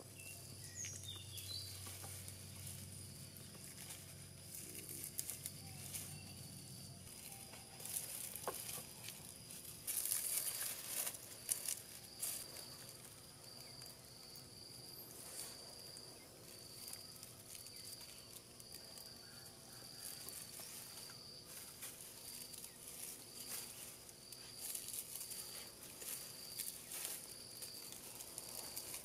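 Long grass stems rustling and scratching as hands gather them into bundles and tie them onto a stick for thatch, loudest in a flurry about ten seconds in. Behind it, a high insect call pulses about once a second.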